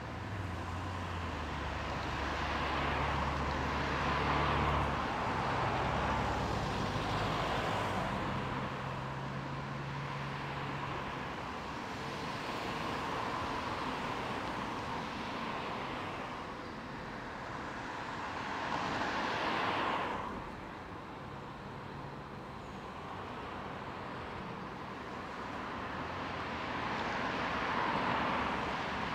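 Diesel locomotive of a freight train with a low steady engine drone, fading out about halfway through and coming back later. Over it, several swelling-and-fading rushes of passing road traffic.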